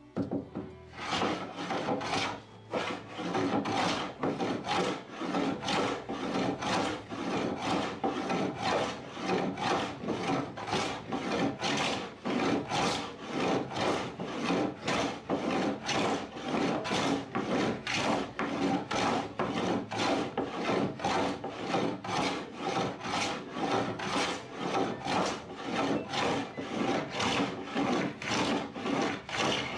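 Wood of a door being worked by hand with an abrasive, rubbed back and forth in steady strokes at about two a second, taking material down.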